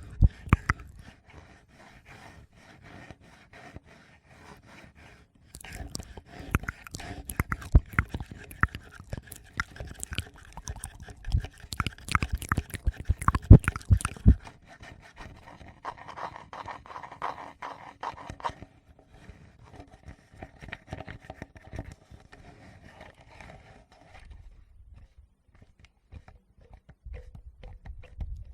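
Close-miked ASMR handling of a Tascam recorder's microphones mixed with wet mouth clicks. After a quiet start, a dense run of crackly taps and scrapes begins about five seconds in and lasts some nine seconds, followed by softer rubbing that fades toward the end.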